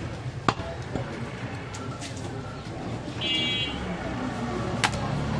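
A few sharp knocks of a butcher's cleaver on a wooden chopping block, the loudest near the end, over a steady hum of traffic and voices. About three seconds in, a short high-pitched beep sounds for half a second.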